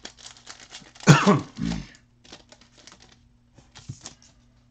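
A person gives a short throat-clearing cough about a second in. Around it come the faint rustle and clicks of trading cards and foil pack wrappers being handled.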